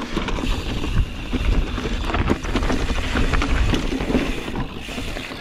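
Mountain bike riding over a rough dirt and rock trail: tyre noise with frequent rattles and knocks from the bike, and wind buffeting the microphone.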